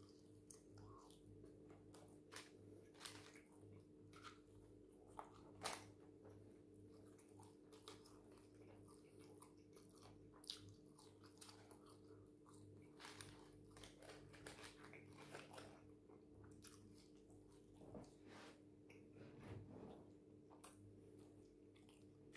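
Quiet close-up chewing and biting of fried chicken wings and chips, with scattered crisp crunches and wet mouth clicks, the sharpest about six seconds in, over a faint steady hum.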